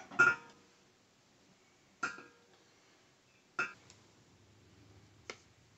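Quartered green walnuts dropped one by one into an empty 5-gallon glass carboy. Each lands with a sharp knock and a brief glassy ring. There are four drops about one and a half seconds apart, the first the loudest.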